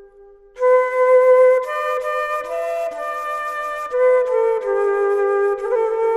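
Slow flute melody of long held notes: a note fades out at the start, then a new phrase comes in just over half a second in and moves step by step between sustained notes.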